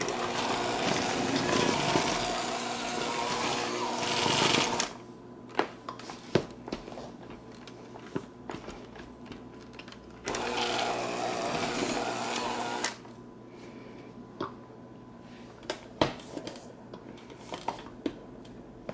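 Electric hand mixer running in two bursts, about five seconds and then about three seconds, its beaters churning thick gingerbread dough in a stainless steel bowl. Between and after the bursts come scattered light clicks and knocks.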